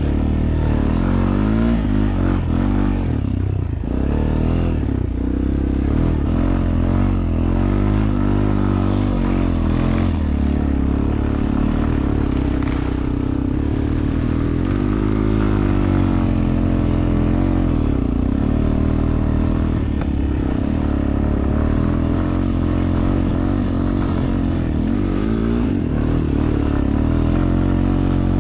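ATV engine running while being ridden, its pitch rising and falling as the throttle is opened and eased off.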